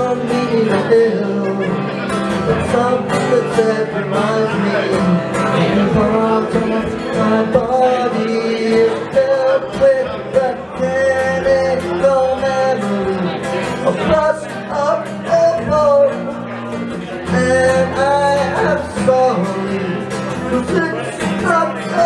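A man singing live to his own strummed acoustic guitar.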